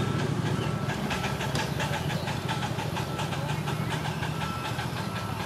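Ride-on live-steam locomotive and its train of riding cars rolling past close by: a steady low rumble with rapid clicking from the wheels on the track. A short high beep repeats about every half second.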